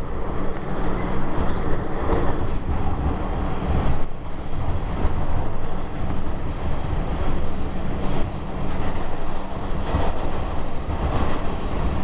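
Inside an R142 subway car in motion: a steady rumble of wheels on track, with a low, even hum running under it.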